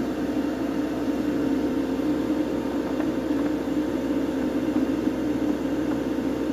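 Extractor fan running steadily with an even hum, and a faint tap about three seconds in.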